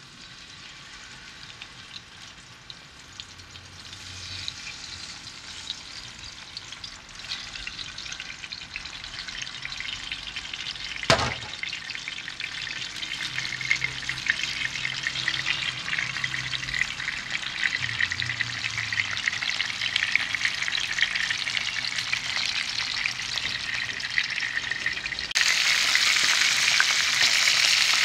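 Whole mullet frying in oil in a pan: a steady sizzle with fine crackling that grows steadily louder. A single sharp knock about eleven seconds in, and the sizzle jumps louder near the end.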